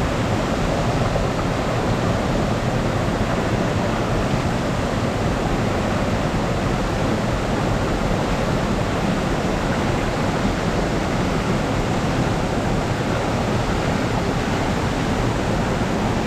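Steady, unbroken roar of rushing water from a monsoon-swollen stream or waterfall.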